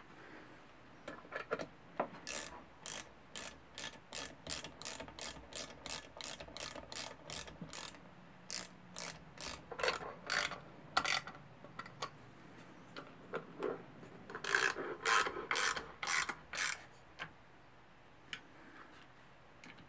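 Socket ratchet wrench clicking in a steady run, about two or three clicks a second, as it turns a bolt on the underside of a Piranha 140cc pit-bike engine; it pauses for a few seconds past the middle, then resumes for a shorter run.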